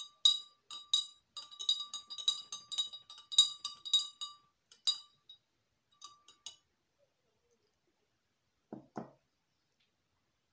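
Metal spoon stirring a drink in a tall glass, clinking quickly and ringing against the glass for about five seconds, then a few scattered clinks. Two soft low knocks near the end.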